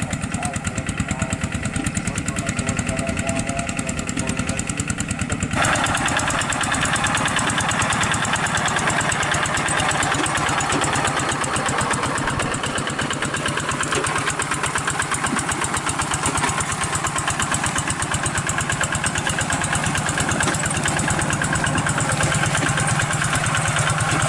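Kubota RD 85 hand tractor's single-cylinder diesel engine running steadily with a rapid, even chugging while it pulls a plough through the paddy. About five seconds in the sound jumps closer and brighter.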